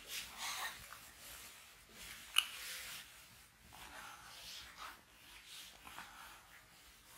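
Whiteboard duster rubbing over a whiteboard in faint, irregular strokes, wiping off marker writing, with one short sharp click about two and a half seconds in.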